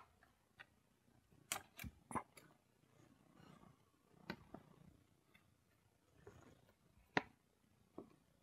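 Scattered sharp clicks and taps, about ten over several seconds with the loudest near the end: a metal spoon knocking and scraping against a clear plastic container as mashed fruit is scooped out.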